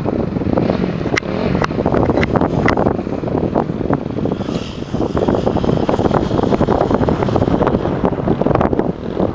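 Strong wind buffeting the microphone, the loudest sound, over the engine of a motocross dirt bike running on the track.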